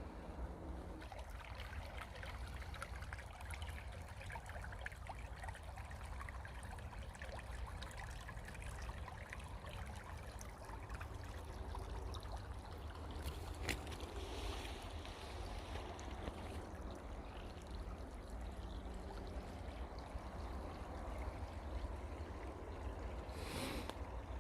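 Rain starting to fall: a steady patter of many small drops over a low, steady rumble, with a single click about fourteen seconds in.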